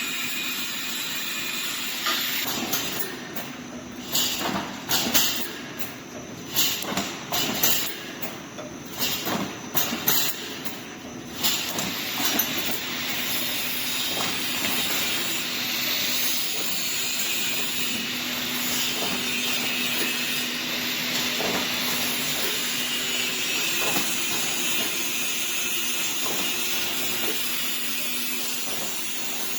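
Mechanical wire-mesh welding machine for 3D fence panels running, a steady hiss over a low hum. From a few seconds in until about twelve seconds in come loud, uneven sharp bursts, and after that the running is steady.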